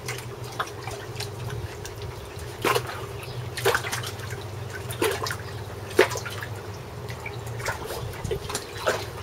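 Water splashing in a shallow plastic wading pool as a Jack Russell terrier puppy paws and bites at it, with sharp splashes about once a second from about two and a half seconds in, over a low steady hum.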